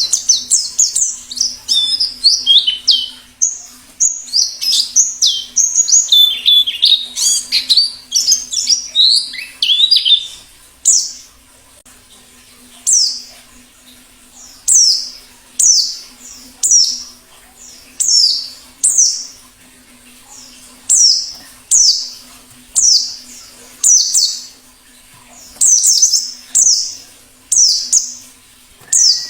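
Wild forest white-eye (pleci ngalas) singing. For about the first ten seconds it gives a fast, dense twittering of high chirps, then single high chirps that fall in pitch, about one a second. A faint steady low hum runs underneath.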